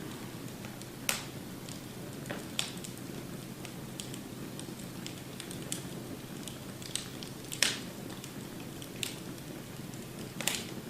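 Wood fire crackling in a fireplace: a steady low rumble with irregular sharp pops and snaps, the loudest about a second in and about seven and a half seconds in.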